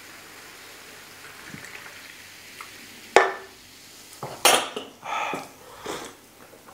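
Cola poured from a can into a glass, faint fizzing, then a sharp knock about three seconds in as the aluminium can is set down on the wooden table. Several more knocks and clinks follow as the glass is lifted and drunk from.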